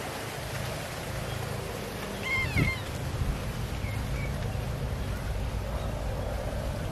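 A domestic cat meows once, a short bending cry about two seconds in, with a fainter brief call a little after four seconds: cats begging for raw fish held above them. A steady low rumble runs underneath.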